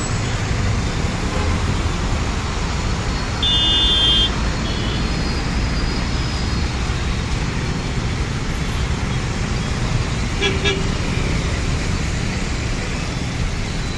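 Steady traffic noise of cars and motorbikes on a rain-wet road, the rush of engines and tyres. A vehicle horn sounds for under a second about three and a half seconds in, and a second brief toot comes about ten and a half seconds in.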